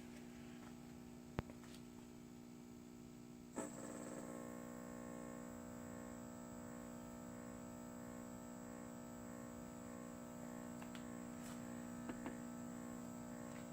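A click about three and a half seconds in, then a steady electrical hum with a high whine above it: the Powerjack 15 kW inverter's transformer powering up as the window air conditioner switches on and loads it.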